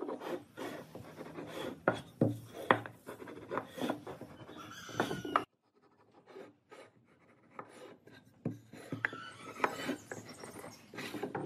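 Two-pin marking gauge scratching lines into a pine block, with irregular scraping and sharp ticks as its pins and fence rub and knock against the wood.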